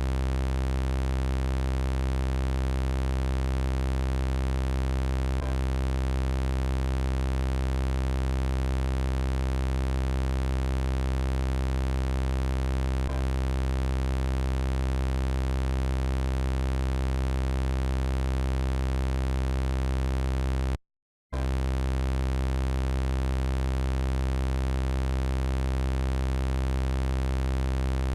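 Looped robot sound effect: a steady synthesized electronic buzz of many fixed tones over a strong low hum, with no rise or fall in pitch. A faint click comes about every eight seconds where the loop repeats, and the sound cuts out for about half a second around 21 seconds in.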